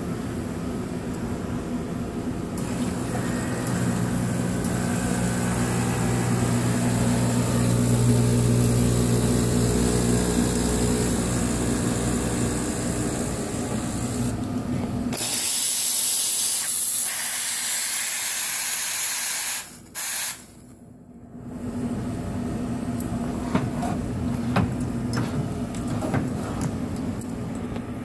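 Three-group pod espresso machine running with a steady low hum. About fifteen seconds in, a loud hiss of steam takes over for about four seconds and cuts off suddenly. One short second burst follows, then the hum returns with a few light clicks.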